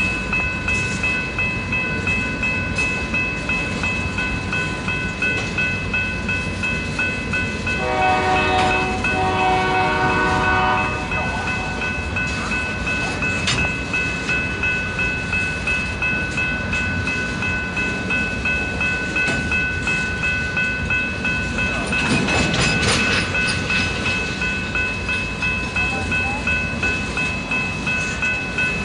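Loaded tank cars of a freight train rolling past, wheels clicking over the rail joints in a steady rhythm, with a steady high squeal from the wheels. About eight seconds in, a locomotive horn sounds for about three seconds.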